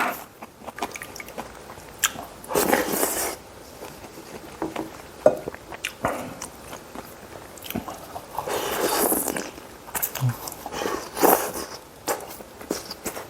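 Close-miked eating sounds: a person chewing and biting food, with short clicks and a few louder noisy stretches.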